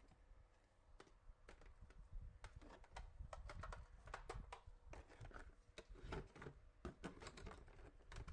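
Faint, irregular light clicks and taps, several a second, close to near silence.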